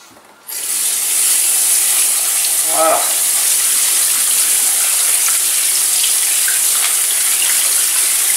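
Kitchen tap turned on about half a second in, water running steadily onto salted courgette slices in a plastic colander in the sink, rinsing the salt off.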